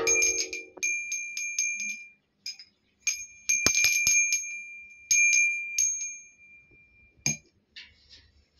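A brief, lower metallic clang, then a small brass hand bell rung in quick runs of clapper strikes. Its high ringing tone hangs on between the strikes, and a last single strike comes near the end.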